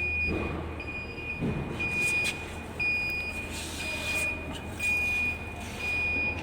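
An electronic warning beeper sounding about once a second, each beep about half a second long, over the steady low hum of a running CNC 2D wire bending machine, with a few clicks and a short hiss just past the middle.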